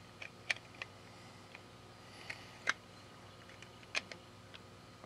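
Scattered sharp plastic clicks and taps from handling the small plastic case of a wireless doorbell push-button transmitter while trying to snap it shut, about half a dozen irregular clicks.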